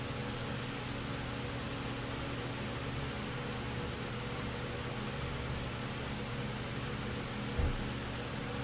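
Hand sanding of a primed plastic model hood with an abrasive sheet on a sanding block: soft rubbing strokes under a steady hum and hiss. One low thump comes about seven and a half seconds in.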